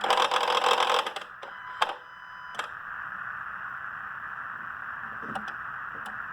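Electronic throttle body on a 2012 Dodge Grand Caravan's 3.6-litre engine buzzing and grinding for about a second at key-on, followed by a click and a brief tone. The owner takes the noise for stress on the throttle body from an intake resonator that will not seat on its snap posts.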